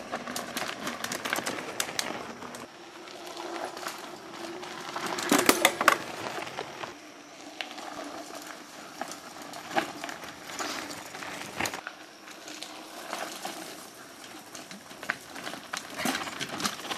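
Mountain bikes climbing a dirt trail: scattered clicks and crunches from tyres on loose dirt and from the bikes' drivetrains, with a burst of louder clicks about five seconds in.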